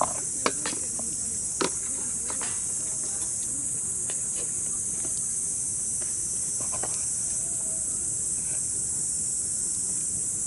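Steady, high-pitched chorus of crickets or other night insects, with a few sharp clicks or snaps in the first couple of seconds and again about seven seconds in.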